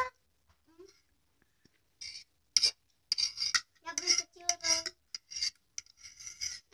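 Metal fork scraping and clinking on a ceramic plate of spaghetti: a string of short, irregular scrapes and taps, some with a brief squeak.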